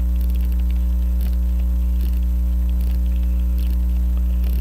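Steady electrical mains hum, with a few faint, irregular clicks as the Hamilton 940 pocket watch is wound at the crown and its new mainspring winds up tight.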